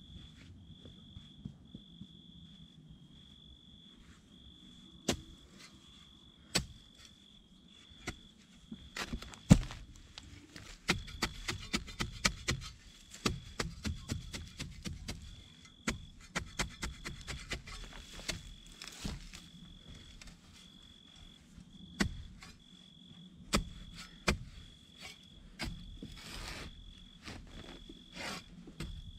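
Steel spade chopping and scraping into dry, grassy soil and roots at the rim of a pit, an uneven run of crunches and knocks, the sharpest about a third of the way in. Behind it an insect chirps steadily, a little more than once a second.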